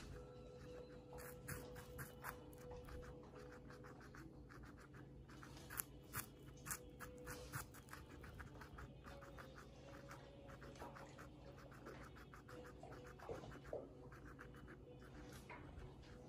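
Guinea pig chewing raw butternut squash: faint, crisp crunching clicks, some coming in quick runs.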